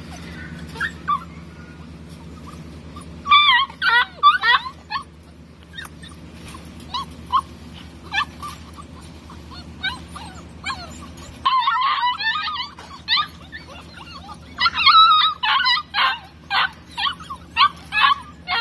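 A litter of English coonhound puppies whining and yipping in short, high, wavering cries. The cries come in scattered bursts at first and build into a near-continuous chorus of overlapping yelps in the last few seconds. Under them runs a steady low hum that stops about halfway through.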